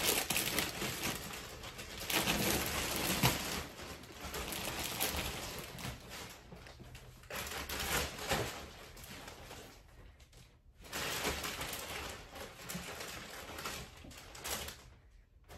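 Clear plastic bag crinkling and rustling as skeins of yarn are pulled out of it, in three stretches with short breaks.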